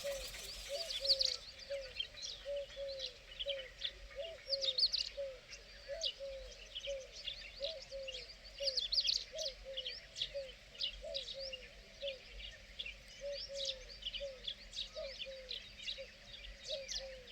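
Several birds chirping with quick high notes, over a steady run of short, low, arched calls from one bird repeated about once or twice a second. A brief rushing noise in the first second.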